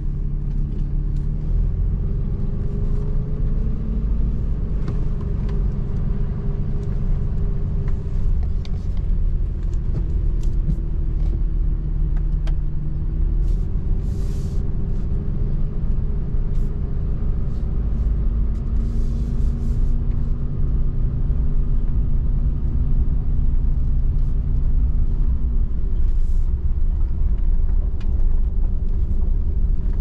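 Cabin noise of a pickup truck driving slowly on a wet dirt road: a steady low engine hum and tyre rumble, with the engine's pitch drifting slightly, and scattered short ticks.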